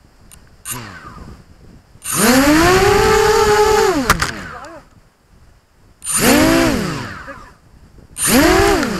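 A small, high-revving engine sounds in three loud bursts. The first starts about two seconds in and lasts about two seconds, and two shorter ones follow near the end. Each burst rises and then falls in pitch.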